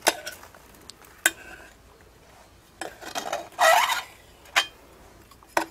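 A steel spoon stirring marinated chicken in a bowl: a few sharp clinks of the spoon against the bowl's rim, and a louder wet scraping stretch about three and a half seconds in.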